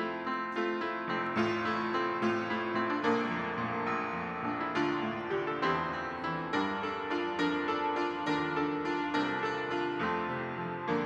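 Piano playing the instrumental introduction to a worship song: a steady melody over chords, one note struck after another.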